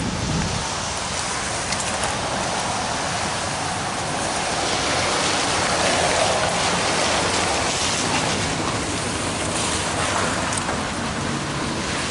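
Steady rain falling, an even hiss that swells slightly around the middle.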